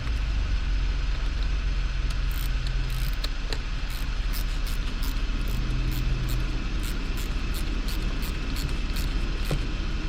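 A socket ratchet clicking in a run of short strokes, about two to three clicks a second from about two seconds in, as the battery's negative cable clamp is tightened. A steady low rumble runs underneath and is the loudest part.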